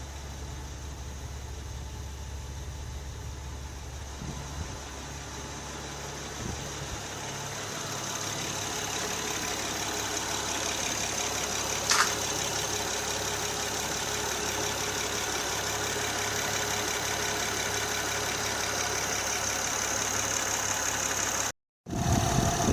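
Honda J35 3.5-litre V6 in a 2008 Honda Odyssey idling steadily, a freshly swapped-in used engine running smoothly with its warning light out: 'purring like a kitten'. One short sharp click about halfway through, and the sound breaks off briefly near the end.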